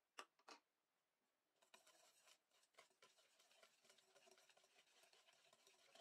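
Faint whisking of egg yolks with a wire balloon whisk in a stainless steel bowl. Two quick clicks come near the start, then from about two seconds in a steady, rapid scraping and clinking of the wires against the steel.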